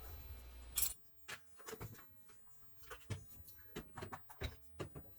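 Scattered light clicks and taps of a washer drain pump assembly being handled as its motor is detached from the pump housing, with a sharper click a little under a second in.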